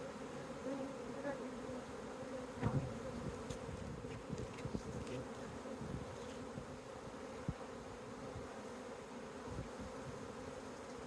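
A large swarm of honeybees buzzing in a steady, dense hum, with a few brief knocks, the loudest about three seconds in.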